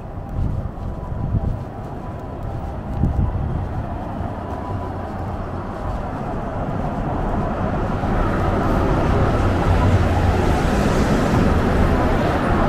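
Road traffic on a busy city avenue: a steady low rumble of engines and tyres that grows louder from about six seconds in as vehicles draw near.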